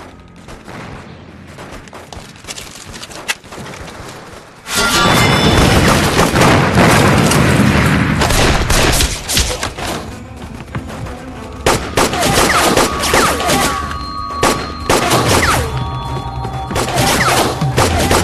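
Staged film gunfight: quiet with a few scattered clicks at first, then a sudden loud barrage of gunfire and blasts about five seconds in that keeps going, over a dramatic music score.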